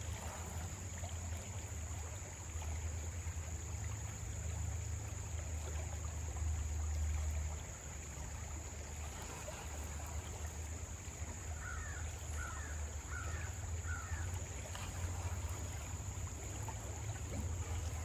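Shallow creek water running steadily over a riffle, with a steady low rumble under it. A bird calls four times in quick succession about twelve seconds in.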